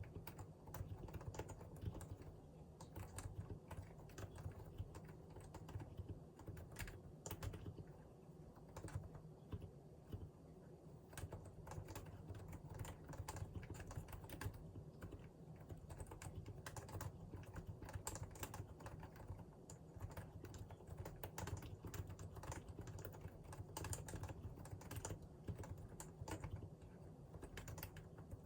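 Continuous typing on a Realforce R2 PFU Limited Edition keyboard with Topre electrostatic capacitive switches: a steady, unbroken run of fairly faint keystrokes.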